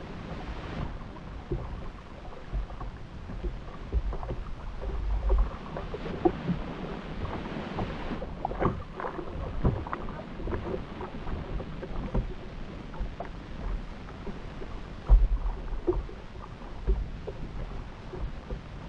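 Water splashing and lapping against the hull of a small outrigger racing boat, with its outboard engine not running. Wind buffets the microphone in low gusts, the strongest about five and fifteen seconds in, and there are scattered small splashes and knocks.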